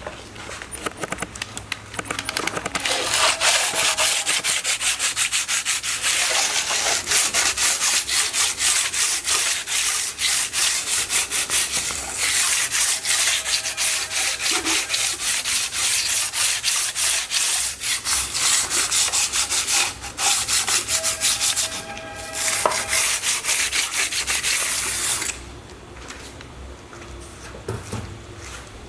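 Rapid back-and-forth hand rubbing of an abrasive on the aluminium gasket face of a BMW B48 engine, cleaning off head-gasket remnants. The strokes start a couple of seconds in, falter briefly twice, and stop a few seconds before the end.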